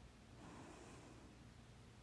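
Near silence with one faint breath from a person who has hiccups, about half a second in.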